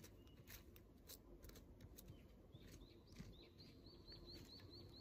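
Faint scattered clicks and crackles from a small smoking pile of wood shavings as a fire is started. About halfway through, a bird gives a quick run of about nine short high chirps, roughly four a second.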